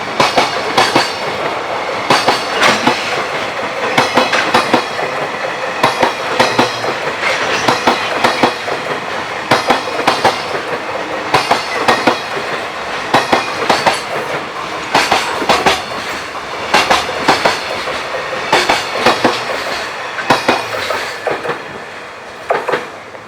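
Freight train wagons rolling past at speed, their wheels clacking over the rail joints in repeated clusters of beats over a steady rumble. The sound eases off near the end.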